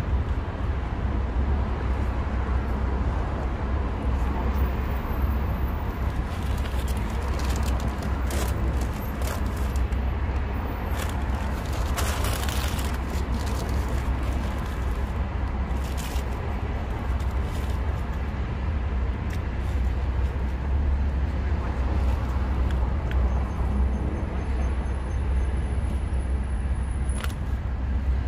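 Steady low rumble of outdoor street ambience with car traffic, and now and then a short crinkle of aluminium foil and a paper bag being handled.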